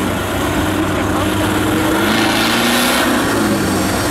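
Off-road vehicle engine revving, its pitch rising and falling unevenly and shifting a couple of times.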